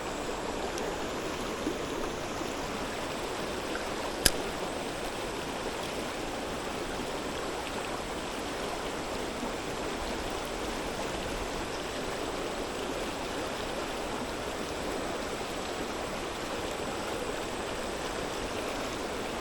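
Mountain stream rushing steadily, with one sharp click about four seconds in.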